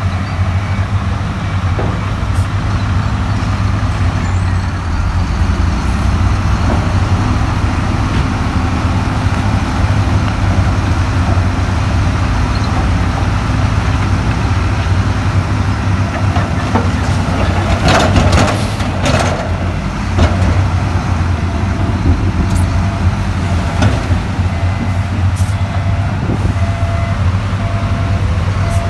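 Heavy diesel earthmoving machinery runs steadily with a low engine drone. About eighteen seconds in comes a short cluster of clanks and scrapes. Near the end a reversing alarm beeps at an even pace.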